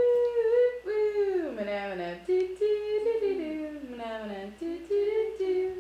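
A woman humming a wordless, wandering tune, with held notes and a long downward slide in pitch about a second in.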